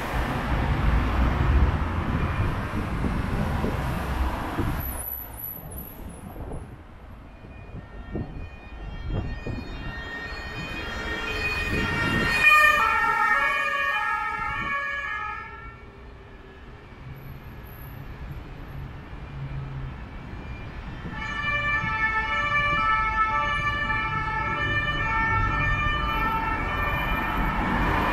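Two-tone emergency-vehicle siren in city traffic, switching back and forth between its two pitches. It swells to its loudest about twelve seconds in, fades, and sounds again in the second half. The first few seconds hold heavy traffic rumble.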